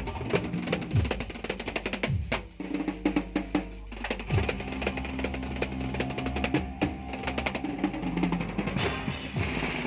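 Drum kit being played during a sound check: quick strokes on snare and bass drum, with a brief lull about two and a half seconds in.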